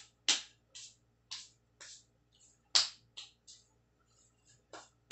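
Short, sharp rustling noises about twice a second from hands sticky with slime being rubbed clean, the loudest a little before the middle, with a brief pause near the end.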